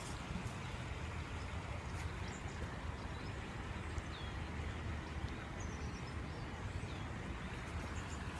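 Outdoor ambience: a steady low rumble, with a few faint, short, high chirps from small birds scattered through it.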